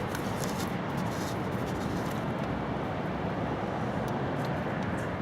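Steady rushing background noise, with a few faint clicks and taps of handling.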